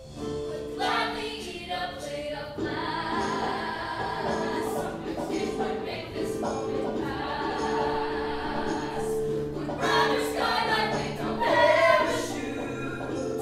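Musical-theatre ensemble number: several young voices singing together into handheld microphones over instrumental accompaniment, swelling loudest near the end.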